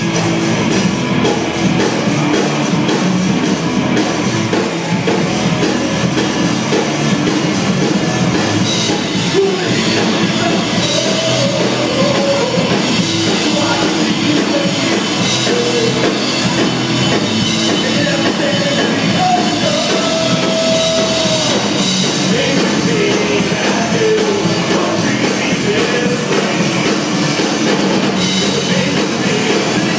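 Live rock band with two electric guitars and a drum kit kicking in together at the start and playing a loud hard-rock song.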